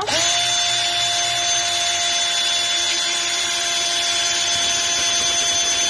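Power drill with a Phillips screwdriver bit starting up and spinning a sheet of card stock at full speed. It gives a steady whine over a hiss, with a brief rise in pitch as it gets up to speed at the start.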